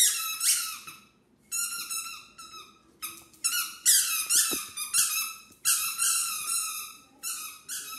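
A squeaky toy squeaked over and over in bursts of quick, high squeaks, about one burst a second, all at the same pitch.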